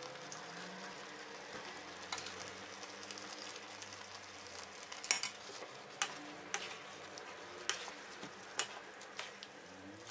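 Spaghetti being stirred and tossed with two wooden spoons in a non-stick frying pan of spinach cream sauce, the sauce simmering with a steady faint sizzle. Sharp clicks of the wooden spoons against the pan come now and then, more often in the second half.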